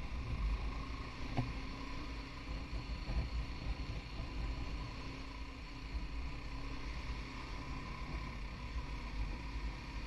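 BMW G 310 GS single-cylinder engine running steadily while riding, with heavy wind buffeting on the bike-mounted microphone. A single sharp click sounds about a second and a half in.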